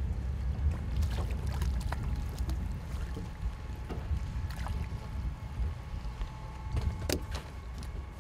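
Steady low rumble aboard a fishing boat with water lapping at the hull, broken by scattered short clicks and splashes as a hooked jack mackerel is brought to the surface; the sharpest click comes about seven seconds in.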